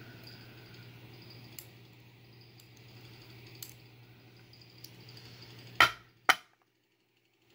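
Small metal ticks of tweezers working in a brass padlock's keyway over a low steady hum, then two sharp knocks about half a second apart as brass lock parts are set down on a wooden pinning tray. The sound then cuts out abruptly.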